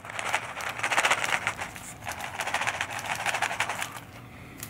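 Plastic googly eyes rattling inside a clear plastic box as it is shaken: a dense clatter of small clicks that dies down near the end.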